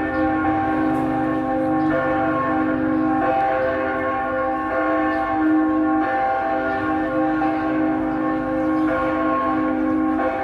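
Church bells ringing continuously, several bells sounding together so that new strokes overlap the ringing of earlier ones.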